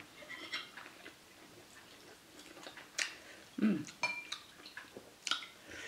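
A metal spoon and fork clicking and scraping against dishes, a few light, sparse clinks, one ringing briefly about four seconds in. A brief vocal murmur from the eater a little past halfway.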